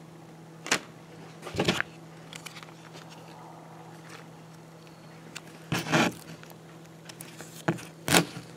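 A foil-laminate MRE retort pouch being handled and torn at its notch: a few short, sharp crinkling rips, the tear stopping short instead of running all the way across the pouch.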